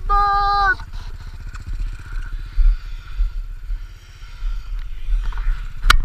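Off-road vehicle engine running at low speed with a steady low pulsing. A pitched tone about a second long sits over it at the start, and a sharp knock comes near the end.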